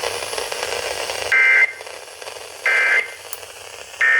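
Emergency Alert System end-of-message data bursts: three short, identical buzzing bursts of two-tone digital code, about 1.3 s apart, sent over a radio receiver. They follow about a second of radio hiss, and they mark the end of the alert broadcast.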